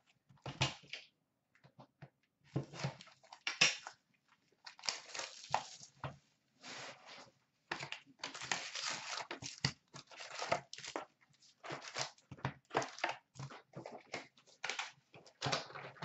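Crinkling, tearing and rustling of plastic wrap and cardboard packaging in irregular bursts as a sealed box of 2013-14 Upper Deck SP Authentic hockey cards is unwrapped and opened and its packs are taken out.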